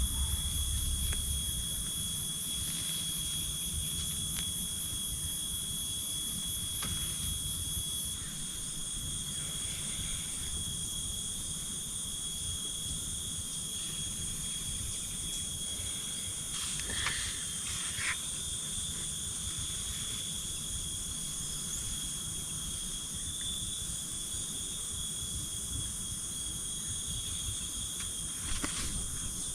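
Chorus of insects singing steadily with a high, ringing drone; one higher layer of the chorus stops about eight seconds in. A few brief clicks sound in the middle and near the end.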